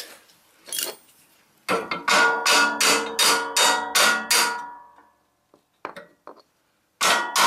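Hammer striking a steel plow-mount bracket on a lawn tractor frame to knock it into place: a quick run of about nine ringing metal strikes, about three a second, then a pause with a few small clicks, and more strikes starting near the end.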